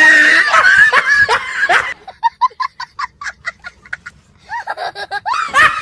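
A loud prank train-horn blast with a startled shout in the first second or two, then laughter in short rapid pulses, about four or five a second, and a voice exclaiming near the end.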